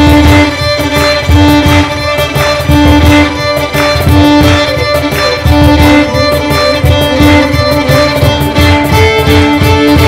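A string ensemble of violins, viola and cello plays a Persian traditional tune over a steady beat struck on a cajon.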